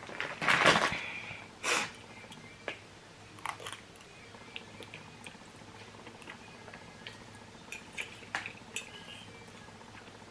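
Quiet eating sounds: chewing Samyang black bean fire noodles, with two short noisy bursts in the first two seconds and scattered small clicks after.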